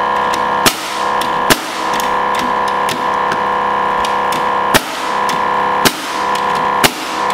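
Pneumatic framing nailer firing five nails into lumber as sharp shots, two in the first two seconds and three more in the last three seconds. Under them runs the steady hum of a Milwaukee M18 2-gallon cordless air compressor, which has kicked on to refill its tank as the shots draw the pressure down.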